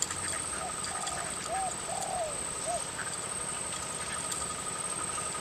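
A bird calling outdoors: a run of about five short notes, each rising and falling in pitch, over the first three seconds, above a steady high-pitched whine.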